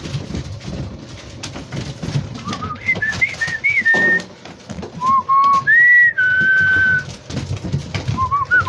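A person whistling a short tune in clear held and gliding notes, in three phrases, over light knocks and rustling of puppies playing with toys on a tiled floor.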